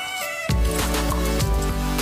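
Background music: a melody with a held bass note that comes in about half a second in.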